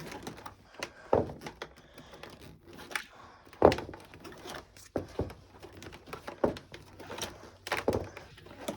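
Scattered clunks and knocks, with lighter clicks between, as a Shark upright vacuum cleaner is handled before being switched on; the loudest knock comes about three and a half seconds in.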